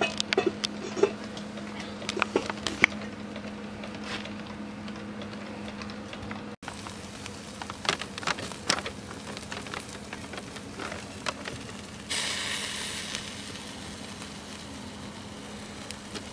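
Chicken and pork sizzling on a charcoal grill, with scattered crackles and pops from the coals and a brief louder hiss about twelve seconds in.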